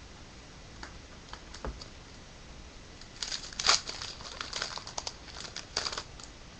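Foil wrapper of a trading card pack being torn open and crinkled: a few scattered crackles, then a dense burst of crinkling from about three seconds in to about six.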